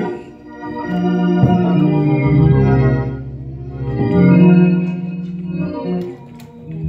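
Hammond-style console organ playing sustained chords, swelling louder twice and easing off between, with the chords changing every second or two.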